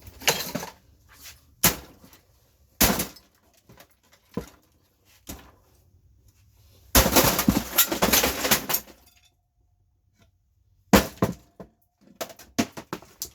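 Hammer blows on an old cassette deck, the casing and parts cracking and breaking. Single hard strikes a second or so apart are followed, about seven seconds in, by a quick two-second flurry of hits. A few more strikes come near the end.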